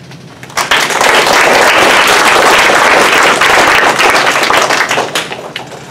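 Audience applauding loudly. It starts suddenly about half a second in and dies away near the end.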